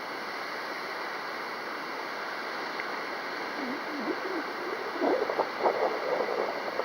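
Strong wind rushing across the microphone, a steady noise that swells slightly; faint low murmuring voice sounds come in over it in the second half.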